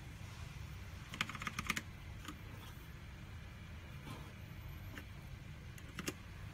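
Keys typed on an Aula Wings of Liberty mechanical keyboard with black switches: a quick run of clacks about a second in, then a few single key presses, the last one the loudest.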